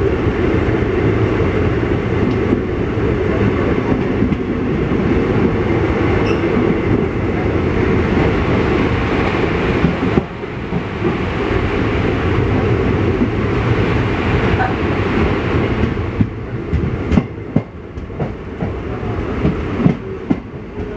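Express train running along the track, heard from on board: a steady rumble of coach wheels on the rails, with several sharp clacks over rail joints near the end.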